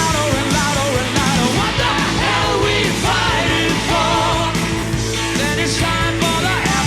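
Rock band playing live at full volume: drums and bass under a wavering sung lead melody.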